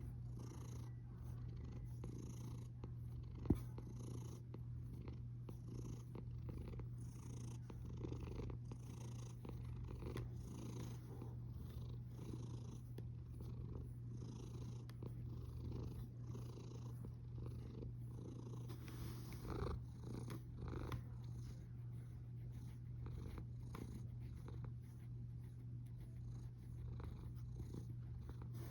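Sleeping cat snoring: a low, steady rumble that swells softly about every two seconds with its breaths. There is a single sharp click about three and a half seconds in.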